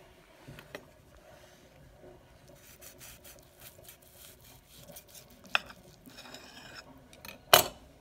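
Chef's knife cutting through a seared filet mignon on a ceramic plate: faint sawing and scraping of the blade, with a sharp clink about five and a half seconds in and a louder clink near the end.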